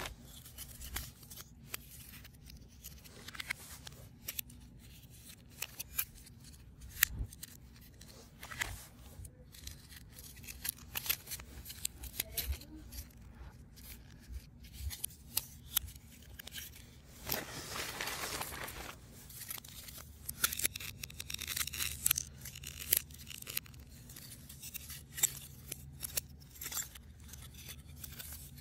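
3D puzzle pieces being handled and fitted together by hand: an uneven run of small clicks, taps and scratchy handling noises, with one longer rustling scrape a little past the middle.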